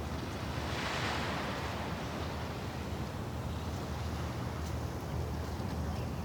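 Sea waves washing in, with one wave swelling and hissing about a second in, over a steady low rumble of wind on the microphone.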